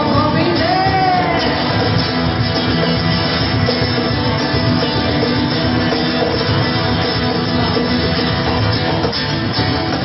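A live band playing a song, with guitar prominent. A pitched line bends up and down in the first second or so, then the band plays on steadily.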